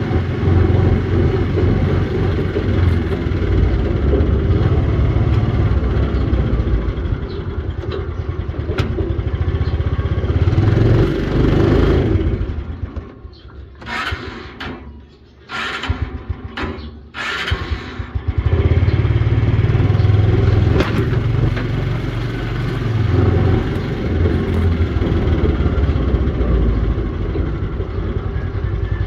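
Motorcycle engine running steadily as it rides along, dropping away for several seconds midway, with a few short hisses, before picking up again.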